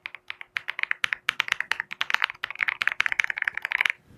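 Typing on a Kreo Swarm 75% mechanical keyboard with pre-lubed switches: a run of keystrokes that starts sparse and picks up to fast, steady typing after about a second and a half, stopping just before the end.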